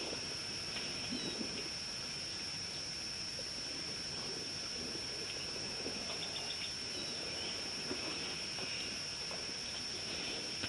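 Outdoor ambience with a steady, high-pitched insect drone and scattered short bird chirps, including a quick run of chirps a little after the middle.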